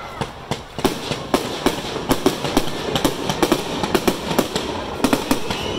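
Aerial fireworks going off overhead: a rapid, irregular string of sharp bangs and crackles, several reports a second, each with a short echoing ring.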